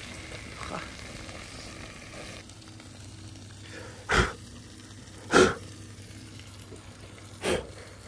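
Lobster tails and garlic butter sizzling over hot coals on a small portable grill: a steady faint hiss. Three short loud bumps cut in, about four, five and a half, and seven and a half seconds in.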